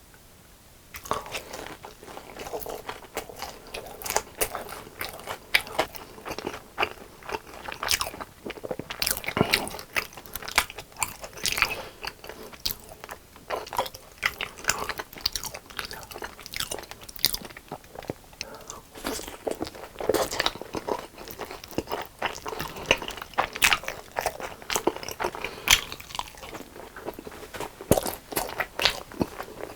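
Crispy fried chicken being bitten and chewed: a dense, continuous run of sharp crunches starting about a second in.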